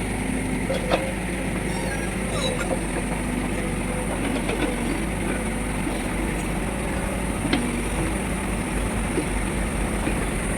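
Heavy diesel machinery engine running steadily at a constant pitch, with a couple of short knocks.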